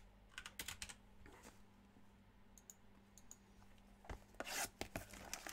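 Faint clicks and rubbing as a sealed trading-card box is handled, then a short burst of scraping and rustling about four seconds in as the box's seal is cut open with a yellow-handled tool.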